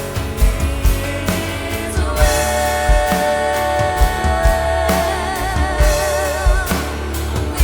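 Live worship band playing with singers over a steady drum beat and bass. A voice holds one long note from about two seconds in until near the end, with vibrato in its second half.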